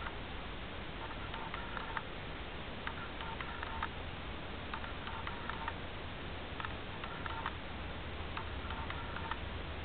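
Electronic beeping: a short pattern of a few steady tones, with a click at each end, repeating about once a second over a steady hiss and low rumble.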